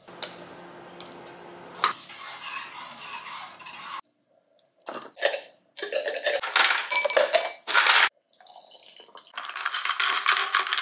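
Clinking and clattering of hard objects such as dishes and cutlery, in a few short stretches with a brief silent gap between them; the clatter is busiest in the middle and again near the end.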